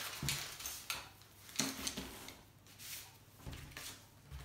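Clear plastic bag crinkling and rustling as it is handled on a tabletop, in several short bursts, the loudest about a second and a half in.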